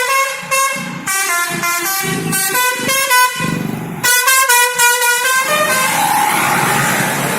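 Indonesian 'telolet' multi-tone bus air horn on the Sindoro Satriamas 202 bus playing a quick tune of short stepped notes. About five and a half seconds in, the horn stops and a steady rush of the bus's engine noise takes over.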